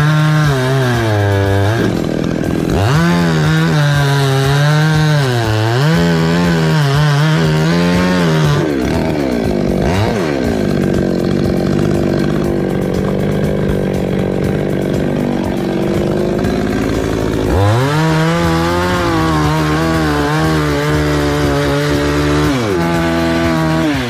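Petrol chainsaw revving in swells, then running at a steadier, lower pitch for about eight seconds while cutting through a coconut palm trunk at its base. It revs high again near the end.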